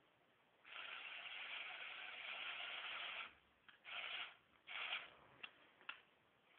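Small LEGO Technic electric motor running, whirring steadily for about two and a half seconds, then two short whirs and a few light clicks.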